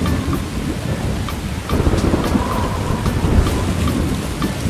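Thunderstorm sound effect: steady rain with low, rolling thunder rumbling throughout.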